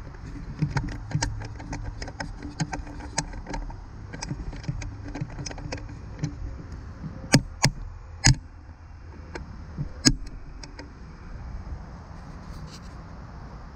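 Irregular metallic clicks and knocks on an aluminium canoe hull, a few louder knocks about halfway through, over a steady low rumble.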